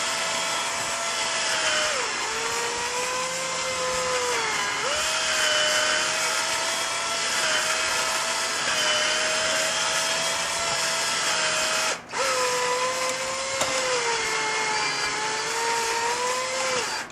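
Electric drill spinning a 20-gauge bore brush soaked in Ballistol inside a Mosin-Nagant rifle's chamber, scrubbing out cosmoline. The motor whine shifts in pitch as the speed changes, cuts out briefly about twelve seconds in, then starts again.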